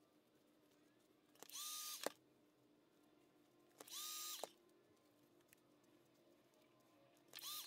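Handheld heat gun switched on in three short bursts of about half a second each, its fan motor whine rising fast, holding steady over a rush of blown air, then dropping as it cuts off. It is heating EVA foam for shaping.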